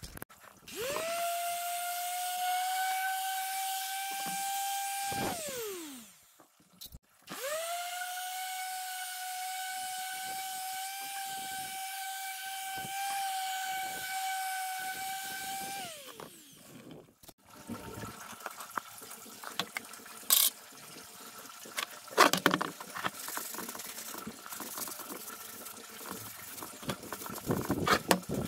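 JCB random orbital sander sanding the scorched wood of a crate with a steady high whine. It runs for about four seconds, stops, then runs again for about nine seconds, and each time it winds up at the start and down at the stop. Later the wooden crate is handled on a plastic workbench, making irregular knocks and clatter.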